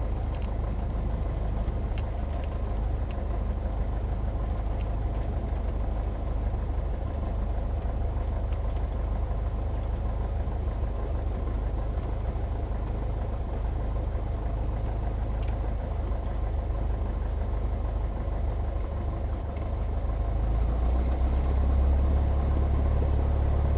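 Single-engine light aircraft's piston engine and propeller running steadily, heard from inside the cockpit during the landing rollout. About twenty seconds in, the low drone grows louder.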